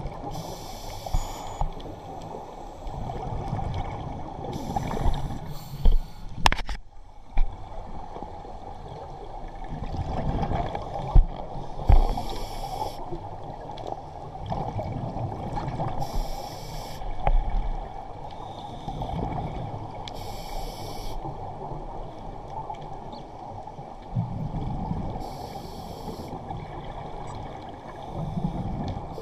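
Scuba diver breathing through a regulator, heard underwater through a camera housing. Bursts of exhaled bubbles come about every four to five seconds over a steady muffled rumble, with one sharp click about six seconds in.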